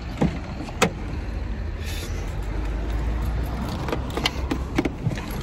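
Low rumble of wind and handling on a phone microphone, with a few scattered clicks and knocks: a sharp one about a second in and several more later, as he walks to the car and handles keys and the door.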